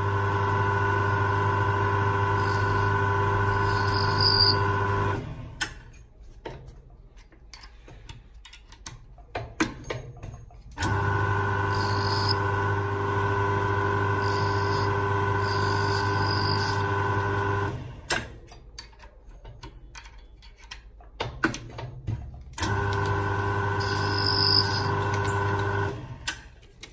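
Jewelry lathe's electric spindle motor running with a steady hum, switched on and off three times: for about five seconds, then about seven, then about three. Between the runs come scattered small clicks as the tool post is handled.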